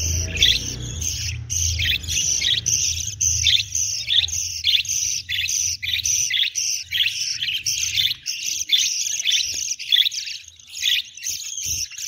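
Budgerigars chirping rapidly and without pause, a dense high chatter, with a low rumble under it for the first half.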